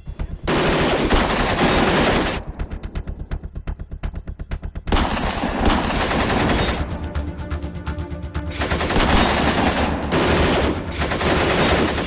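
Soundtrack music with a fast pulsing beat and steady bass, overlaid with about four bursts of rapid machine-gun fire sound effects, each lasting around two seconds.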